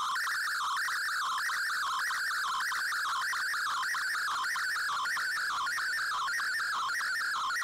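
Digital-mode picture transmission (Fldigi MFSK image) received over shortwave on an Icom IC-R8600. It is a warbling tone that slides up and down between about 1 and 2 kHz in a pattern repeating every second or less, as a colour image is sent line by line.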